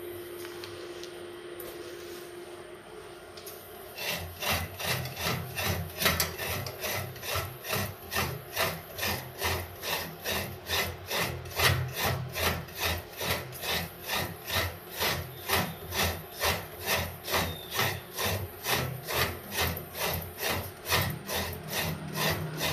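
A serrated metal coconut scraper grating fresh coconut flesh from a coconut half, in rhythmic rasping strokes about two a second. The strokes start about four seconds in.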